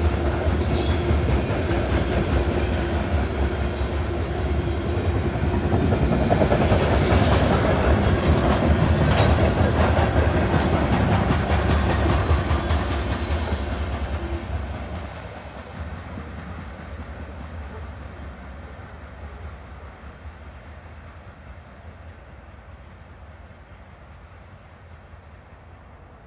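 Freight train of covered hopper cars hauling grain rolling past, its steel wheels clacking over the rail joints. About fifteen seconds in the last cars have gone by, and the sound fades steadily as the train moves away.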